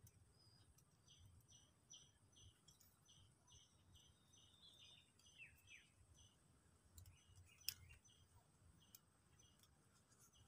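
Near silence: faint high chirping, repeated two or three times a second, with one sharp click about three-quarters of the way through.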